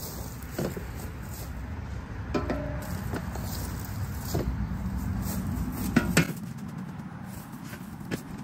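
Aluminum scoop shovel scraping and knocking in a plastic wheelbarrow tub while shoveling spent pine-shaving chicken litter, with scattered metallic clinks. The loudest are two sharp knocks close together about six seconds in.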